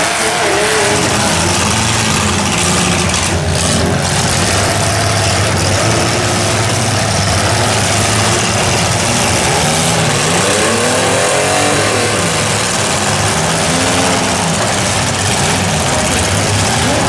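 Engines of several compact demolition derby cars running and revving at once, with one pitch sweeping up and back down about ten seconds in as a car accelerates and backs off.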